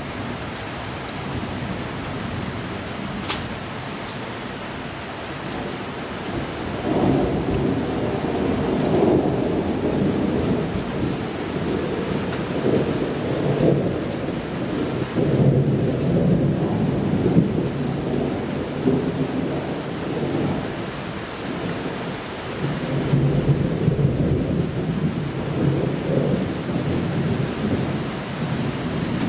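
Thunderstorm: steady rain with long rolling thunder that builds about seven seconds in and rumbles on in swells, easing briefly before surging again near the end.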